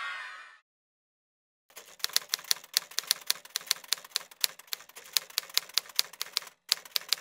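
Typewriter keys clacking in a steady run of sharp strokes, about four a second, as a sound effect for text typing onto the screen, with a short break near the end. Before it, the last of a song fades out in the first half second, followed by a second of silence.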